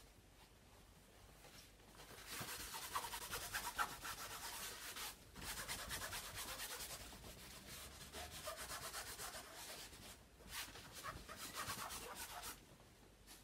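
A rag rubbed back and forth over stretched canvas, smearing and blending wet blue paint. The dry scrubbing starts about two seconds in, breaks off briefly twice, and stops shortly before the end.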